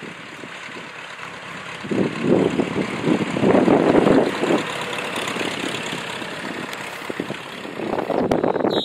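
Jabiru 2200 four-cylinder engine and propeller of a Kitfox light aircraft running at power as it rolls down the runway, growing louder as it passes close by about three to four seconds in, then fading as it moves away.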